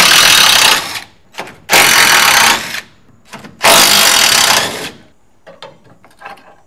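Cordless impact driver hammering out the bolts on the rear spring plate cap of a 1969 VW Bus, in three runs of about a second each. A few light metal clicks follow near the end.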